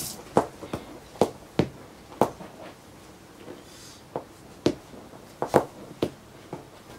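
A cat's claws scratching and catching on a worn leather sofa arm: a dozen or so short, sharp scratches and clicks at irregular spacing.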